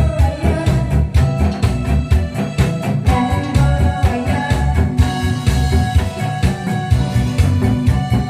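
Upbeat Korean trot medley music with a steady, driving drum beat and sustained melody lines over it.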